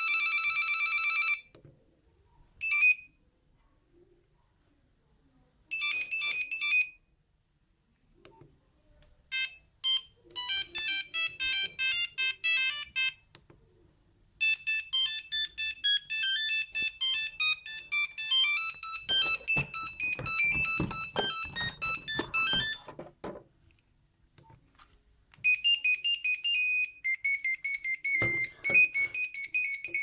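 Nokia 6310 ringtones playing one after another: short monophonic electronic beeping melodies of quick high notes, each run broken off by a brief silence before the next begins.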